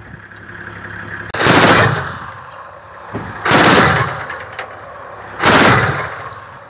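Truck-mounted heavy machine gun firing three short bursts, about two seconds apart, each roughly half a second of rapid fire with a trailing echo.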